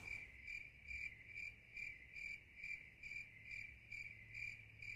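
Faint cricket chirping: one high, even chirp repeated steadily, about two a second.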